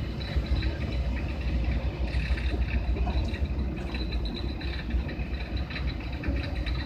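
A heavy diesel truck engine running steadily with a low rumble.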